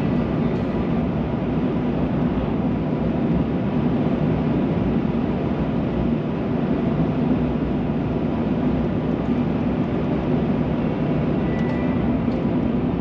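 Steady road noise of a car cruising, a low even rumble with no breaks or changes.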